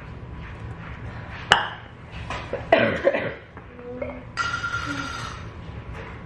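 A person coughing, loud and brief, a few seconds in, just after a sharp click. About a second later a steady high-pitched sound is held for about a second.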